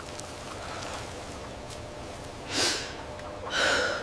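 A child sobbing: two short, gasping breaths about two and a half and three and a half seconds in, over a faint steady background.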